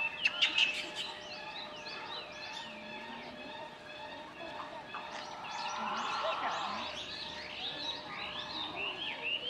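Many short, high chirping animal calls repeating, with a few sharp clicks about half a second in.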